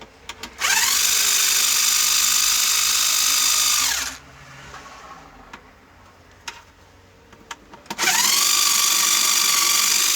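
A power screwdriver running twice in runs of about three seconds each, backing out the screws of the TV's inner cover; each run winds up in pitch at the start and winds down at the end, with small clicks of handling between them.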